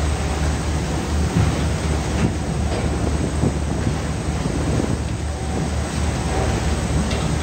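Large fishing boat's engine droning low and steady under a constant rush of sea water washing over the deck, with wind buffeting the microphone.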